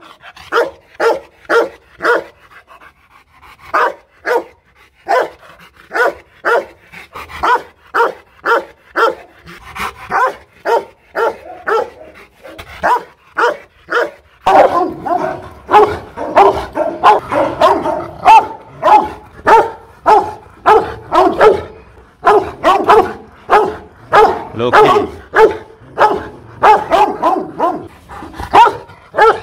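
Rottweiler barking over and over, about two barks a second, with a short pause about three seconds in. About halfway through the barking turns louder and denser, with barely a break between barks.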